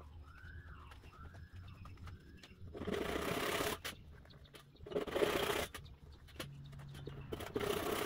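Three short bursts of scraping and rubbing as a wooden dowel is worked into holes in the top of a wooden box, about three, five and seven and a half seconds in. Under the first couple of seconds a bird chirps faintly and repeatedly, each call rising and falling.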